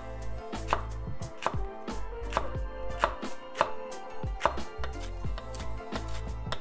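Chef's knife slicing and chopping a red chile pepper on a wooden cutting board: a run of sharp, irregular knife strikes against the board.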